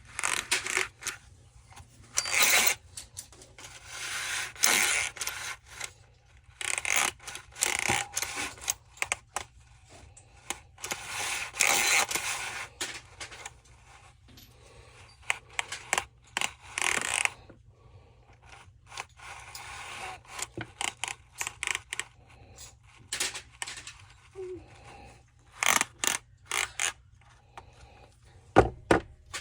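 Irregular scraping, clicks and clatter of saw parts and tools being handled on a workbench, coming in short separate bursts, with a few sharp knocks near the end.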